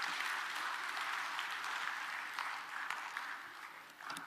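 Audience applauding, a steady clatter of many hands that dies away over the last second or so.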